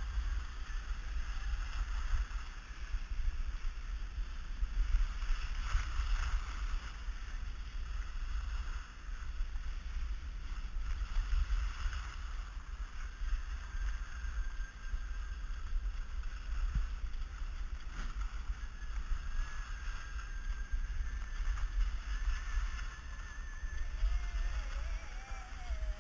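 Wind buffeting a GoPro Hero 2's microphone as a steady rumble while riding fast downhill, with the hiss and scrape of a board edge sliding over groomed snow.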